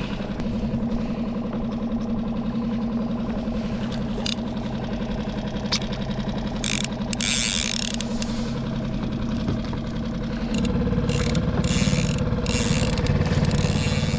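Small outboard motor on a skiff running steadily at trolling speed, its note getting louder and fuller about ten seconds in. A few brief hissing noises break in partway through.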